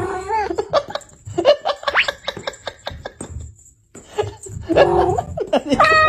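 Laughter in short repeated bursts, with a longer high-pitched note near the end.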